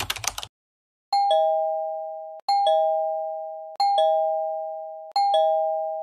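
A two-tone 'ding-dong' doorbell chime, a higher note then a lower one, sounds four times about 1.3 seconds apart, each fading as it rings out. Rapid keyboard-typing clicks come first and stop about half a second in.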